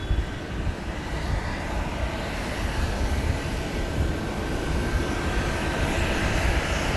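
Jet airliner engines on approach to land: a steady roar with a faint high whine, slowly growing louder.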